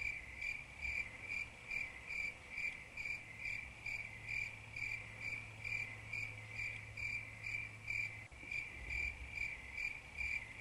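Cricket chirping, a steady, evenly spaced run of short high chirps at about three to four a second.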